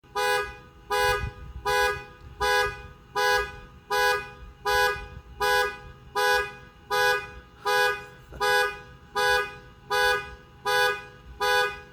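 Car alarm sounding the car's horn in a steady, even rhythm, about sixteen short honks spaced under a second apart.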